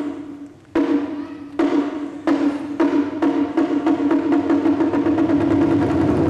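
Taiko drums and a wind band playing together: unison strikes, each leaving a ringing chord, come faster and faster and build into a continuous roll.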